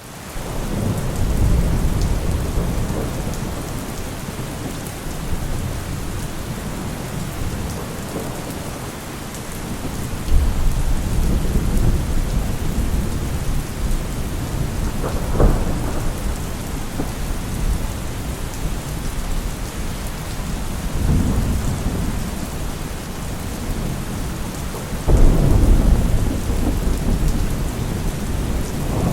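Heavy rain falling steadily, with rolling thunder rumbling again and again; a rumble breaks in suddenly about a third of the way through and another near the end, and a sharp crack comes about halfway.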